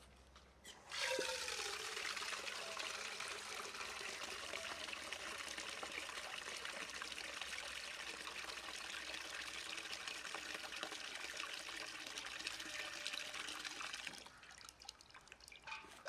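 Water from an outdoor tap pouring into a galvanized metal bucket, starting about a second in and running steadily as the bucket fills, then stopping shortly before the end. A few light knocks follow near the end.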